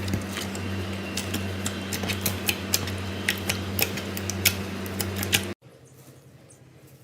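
Slime being handled, giving off irregular crisp clicks and crackles over a steady low hum. The sound cuts off abruptly about five and a half seconds in.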